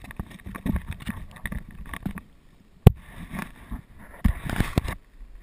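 Handling noise of a GoPro camera being moved and repositioned on its mount: irregular knocks and rubbing, with one sharp loud click about three seconds in. It stops shortly before the end.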